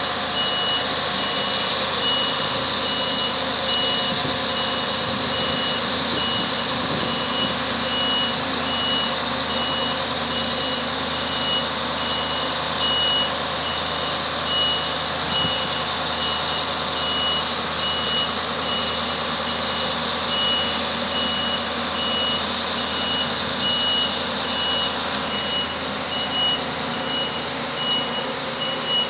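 Claas Lexion 760 combine harvester's engine running steadily while its reversing alarm sounds a high beep, repeating evenly on and off.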